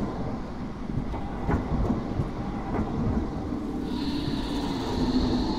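An articulated electric tram rolls past close by: its wheels rumble on the rails with a few sharp clicks, under a steady motor hum. About four seconds in, a high steady whine comes in.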